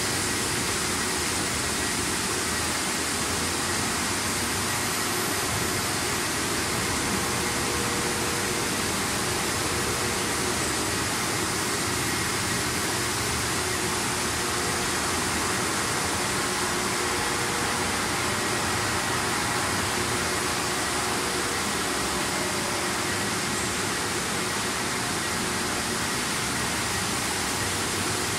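Steady running noise of automatic french fries production line machinery: a constant even whoosh with faint steady hums, no pauses or knocks.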